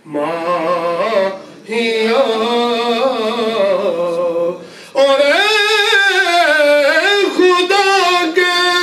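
A man's unaccompanied devotional singing through a microphone. He sings in phrases with two short breaths, then a long phrase that ends on a steady held note.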